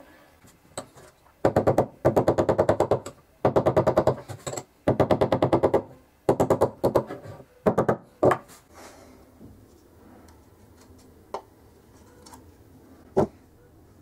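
Bursts of rapid metal tapping on the end of a copper tube over a small steel anvil, about nine sharp strikes a second in six runs, stopping about eight seconds in. Two single knocks follow later.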